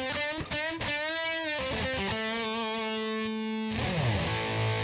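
Electric guitar played through a BOSS BR-900's COSM guitar amp model. A few quick single notes lead into a bent note, then a note held for about a second and a half. Near the end it slides down into a low held note with a noisier, distorted edge.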